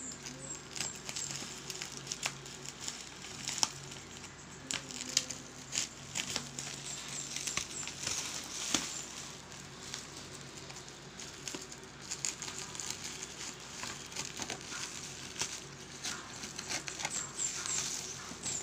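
Plastic bubble wrap crinkling as hands handle and pull at it, with irregular small crackles and clicks.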